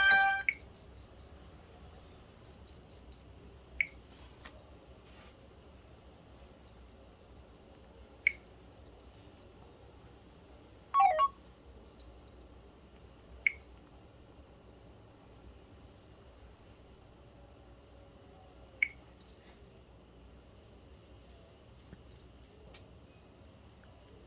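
A Samsung Replenish (SPH-M580) phone ringtone made of high-pitched electronic chirps and short trills in separate groups with pauses between them. A few chirps are held longer midway, and several rise in pitch near the end.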